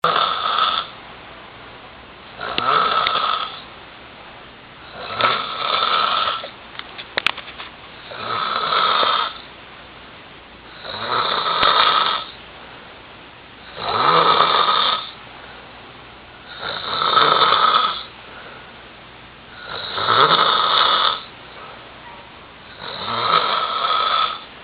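A man snoring heavily in a drunken sleep: one loud snore about every three seconds, each lasting about a second, with quiet breathing between.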